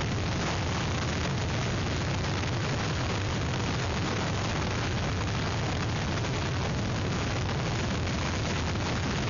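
Hurricane-force wind blasting the microphone, a steady dense rush of noise heaviest in the low end, likely mixed with driving rain.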